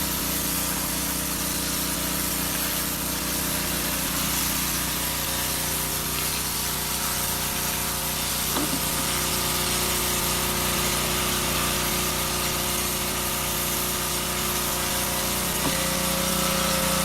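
A machine running steadily, with a constant hum of several tones over a broad hiss.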